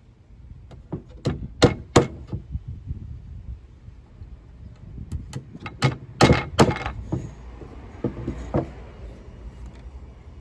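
A string of sharp knocks and clacks, like hard pieces being handled and set down against one another. They come in two quick clusters, the loudest a few seconds in, with a last knock near the end.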